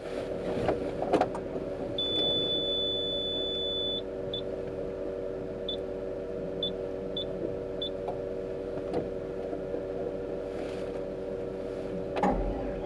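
A motor running steadily with an even whine. A long high beep, then five short high beeps, and a few clicks.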